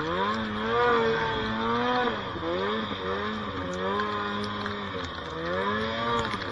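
Snowmobile engine revving up and down under load in deep powder, its pitch rising and falling about once a second as the throttle is worked.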